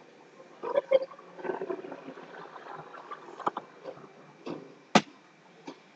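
Scattered distant shouts from players and people on the sideline of a youth football game, with a few sharp clicks, the loudest about five seconds in.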